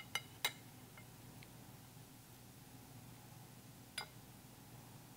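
A few sharp clinks of kitchenware, a utensil or plate against the rim of a stainless pan, as raw chicken thighs are laid in: two close together near the start and one more about four seconds in, with a couple of fainter ticks between.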